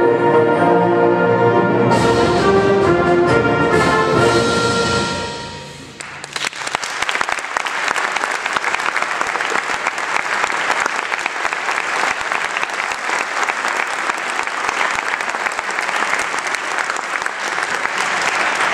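A school concert band with brass plays the closing chords of a piece, which stop and die away about five seconds in. An audience then breaks into steady applause.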